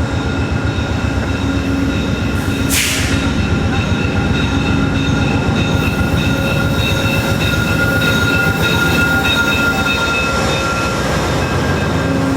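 VIA Rail passenger train, a P42DC diesel locomotive and its coaches, rolling into the station: a steady heavy rumble with high, wavering brake and wheel squeal on top. A brief hiss about three seconds in.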